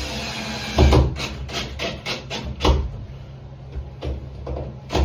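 Door handle and latch hardware being worked: a brisk series of metallic clicks and wooden knocks, with two heavier thumps, after a brief hiss at the start.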